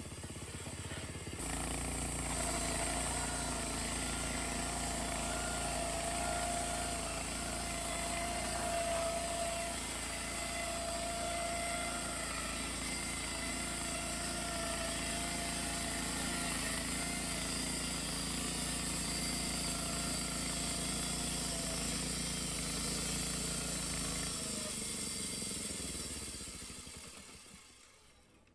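Homemade bandsaw mill running steadily through elm, with a wavering higher tone over its low drive drone. About four seconds before the end the drone stops and the mill winds down to quiet.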